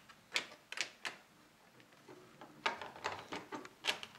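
Irregular sharp plastic clicks and taps as an H0-scale PIKO passenger coach is handled and set onto the model railway track, its wheels and coupler knocking against the rails and the locomotive. The clicks bunch together about three seconds in.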